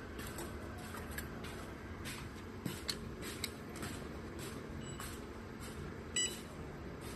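Mini jewelry laser welding machine firing: a series of short, sharp clicks at uneven spacing over a steady machine hum, with one brief beep about six seconds in.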